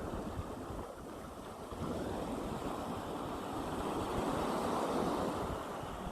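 Calm sea waves washing onto the shore, a wave swelling about two seconds in and peaking near the end, with wind buffeting the microphone.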